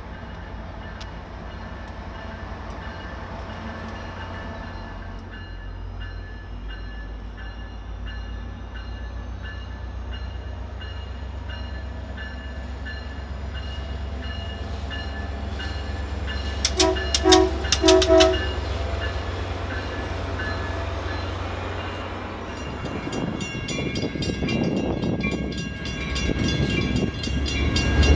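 Diesel commuter train approaching, its engine drone slowly growing louder. It sounds its horn briefly about two-thirds of the way in, then passes close with louder wheel rumble and clatter on the rails near the end.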